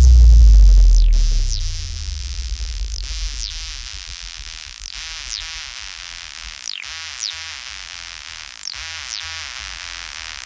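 Electronic dance music breakdown: a heavy sub-bass note fades out over the first couple of seconds, then short falling synth zaps repeat every second or so over a quieter, choppy bass pulse.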